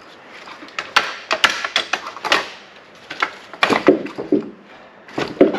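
Irregular sharp metal knocks and clunks from a steel wheel dolly being worked against a dual rear wheel. The wheel is stuck fast on its rusty hub.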